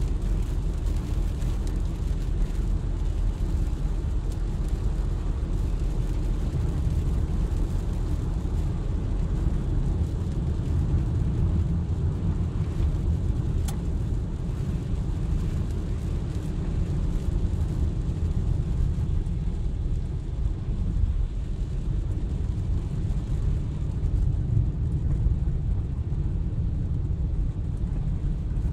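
Subaru XT heard from inside the cabin while driving on a rain-soaked road: steady low engine and road noise with tyre hiss from the wet surface. A single sharp click about halfway through.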